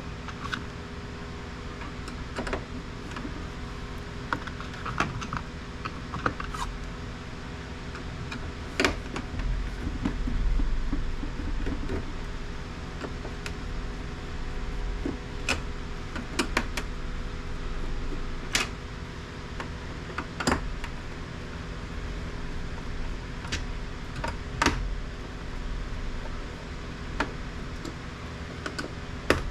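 Scattered sharp clicks and knocks of hard plastic printer parts being handled and pried apart, over a steady background hum.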